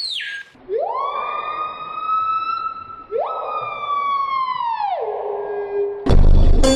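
A siren-like wail: it rises sharply, holds, rises again a couple of seconds later, then drops and holds on a lower note near the end.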